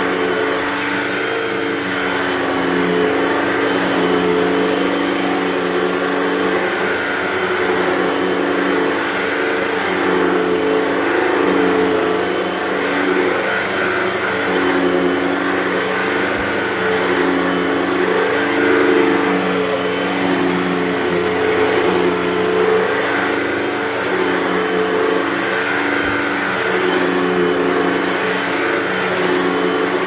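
Hoover Total Home Pet upright vacuum running steadily, its motor hum repeatedly dipping and recovering in pitch as it is worked back and forth over carpet, with a rushing of air over the hum.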